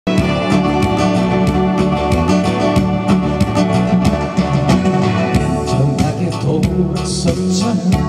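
Instrumental intro of a Korean pop song: acoustic guitar strummed live over a backing track with a steady beat.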